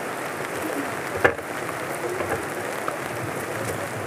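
Steady rain falling, with one sharp knock a little over a second in.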